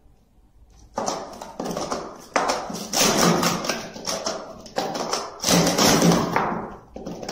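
Plastic sport-stacking cups being rapidly stacked and unstacked by two people in a doubles cycle: a dense run of light clacks and taps as the cups knock together and against the mat, starting about a second in.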